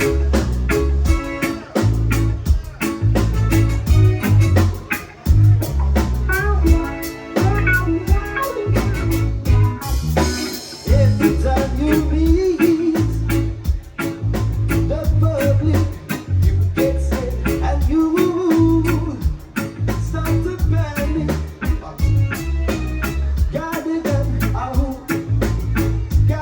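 Live band of drums, bass guitar, guitar and keyboards playing with a steady beat and pulsing bass line; a cymbal crash about ten seconds in.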